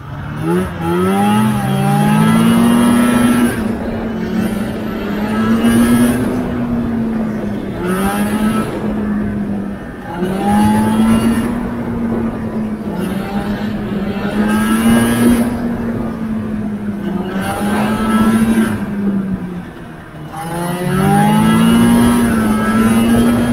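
Vintage snowmobile's two-stroke engine under way, revving up at the start and then rising and falling in pitch every two or three seconds as the throttle is eased and opened again.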